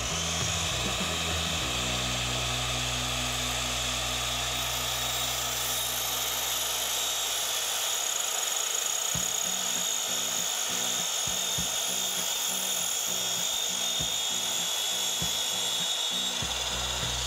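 Mitre saw motor spinning up with a rising whine, then running steadily at full speed as the blade cuts through a thick glued-up wooden block.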